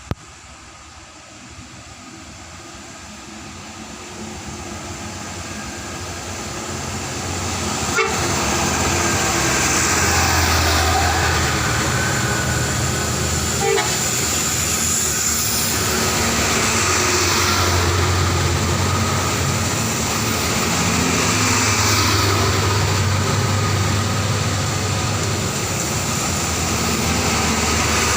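Basuri 'telolet' musical horn on a Pandawa 87 tour bus sounding its tones over the running bus, growing louder over the first eight seconds or so and then staying loud. A sharp click about eight seconds in.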